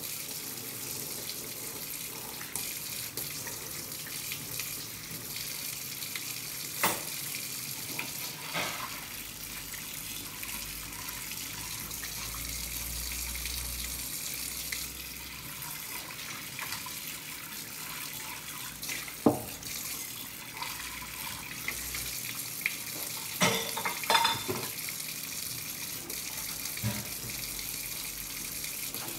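Kitchen faucet running in a steady stream into a stainless-steel sink while dishes are rinsed under it. Now and then a dish clinks or knocks against the sink, most sharply twice in the second half.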